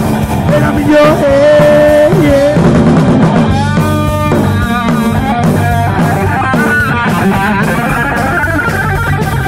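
Live heavy metal band playing loud: electric guitar, bass guitar and drum kit together, with long held notes that bend in pitch in the first few seconds.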